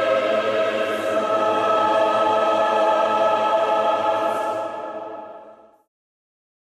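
Background music: a sustained choral chord, held steady, then fading out about five seconds in.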